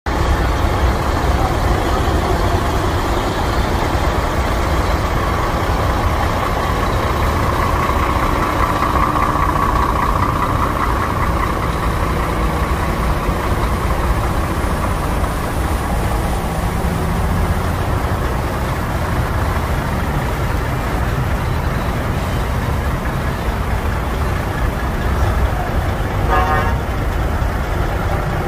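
Steady low rumble of vehicles running among parked lorries, with a short horn toot near the end.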